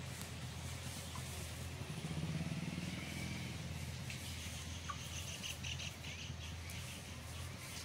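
A motor vehicle engine running steadily, louder for a moment about two seconds in, with small birds chirping rapidly in the second half.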